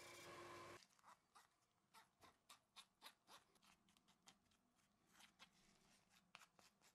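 A belt sander running with a metal strip pressed to the belt, cut off abruptly under a second in. Then a plastic spatula scraping and clicking faintly in a small plastic mixing tray as a thick grey paste is stirred: an uneven run of soft ticks and short scrapes.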